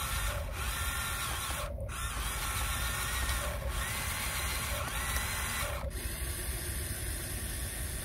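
Electric motors and gearboxes of a Huina RC model excavator whining as the boom and bucket move. The whine comes in short runs of about a second that start and stop, with its pitch rising and falling.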